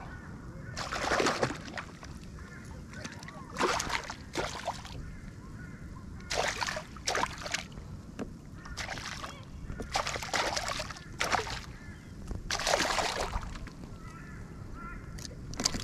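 A hooked flathead thrashing and head-shaking at the water's surface beside a kayak, making about nine short splashes a second or two apart.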